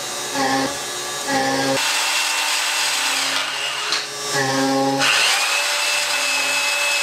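Portable band saw running and cutting through square steel tubing: a steady hiss with a high whine, starting about two seconds in. Background music with a steady beat plays before the saw starts and carries on underneath it.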